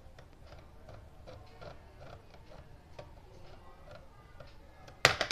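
Faint clicking and ticking of a small screwdriver working the screws of a plastic DVD player case. Near the end comes one sudden, sharp, loud clatter of something hard striking the table.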